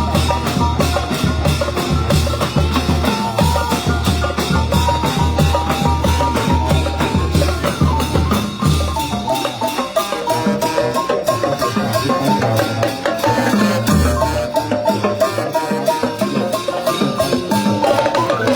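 Thai brass band (trae wong) playing a lively processional tune over drums and percussion. A bass drum beats about twice a second, drops out about halfway, and comes back briefly near the end.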